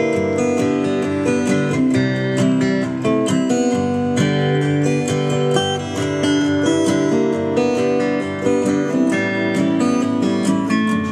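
Instrumental music playing steadily, made of sustained pitched notes, with no singing.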